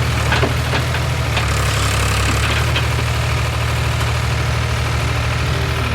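Tractor engine running steadily with an even low rumble.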